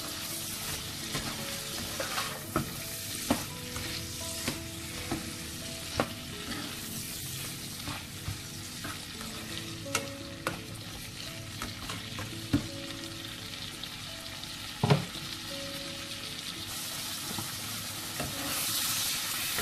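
Small prawns and onion pieces sizzling in oil in a non-stick frying pan while a spatula stirs them, with frequent scrapes and light knocks of the spatula against the pan. One knock about 15 seconds in is louder than the rest.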